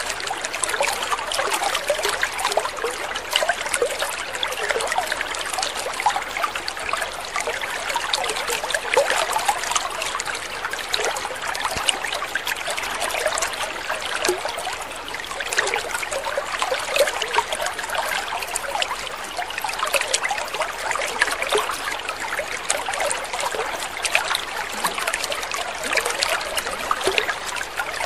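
Water trickling steadily: a constant, even babble of many small splashes.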